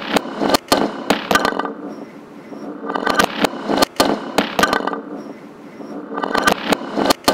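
Experimental sound-art loop: clusters of sharp clicks and crackles over a dense, noisy layer, swelling and fading and repeating about every three and a half seconds.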